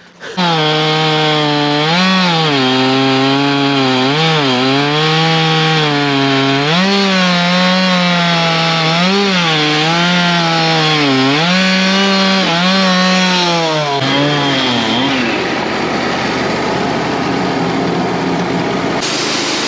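Wood-Mizer LT35 band sawmill running through a large white oak log, its engine note dipping and recovering again and again as the cut loads it. About 14 seconds in the engine note fades, leaving a steady rushing, hissing noise.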